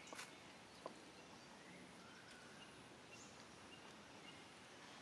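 Near silence: faint outdoor ambience, with a couple of small clicks in the first second.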